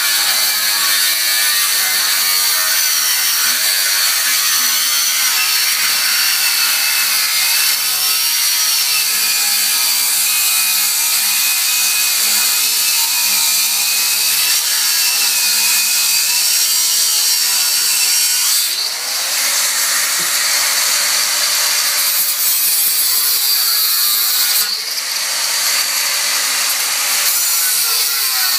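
Angle grinder grinding into the rusted steel rear crossmember of a Toyota Land Cruiser, a loud steady high-pitched grinding. It eases off briefly twice, about two-thirds of the way in and again near the end, then bites back in.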